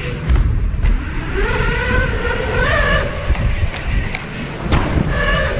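Wind buffeting a helmet-mounted action camera's microphone as a mountain bike rolls down a wooden ramp and takes off into a backflip, with tyre rumble underneath. A drawn-out rising tone sounds about two seconds in, and a couple of sharp clicks come near the end.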